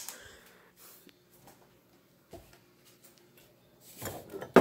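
Handling noise from the phone as it is moved: near quiet with a faint hum and one small click, then rustling and a sharp knock near the end.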